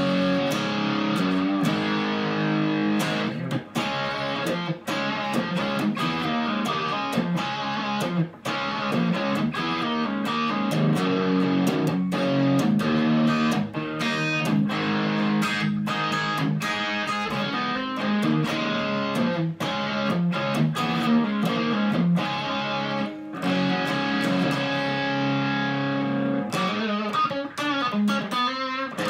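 Epiphone Explorer electric guitar on its bridge pickup, played through a Cascade Pedals Black Cat Overdrive in its medium distortion mode into a Fender Supersonic amp: distorted rock riffing of chugging chords with frequent short stops. Near the end it moves to a few held notes with wide vibrato.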